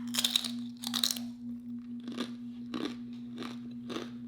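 Close-up bite into crunchy food, two loud crunches in the first second, then steady chewing with softer crunches about twice a second. A steady low hum runs underneath.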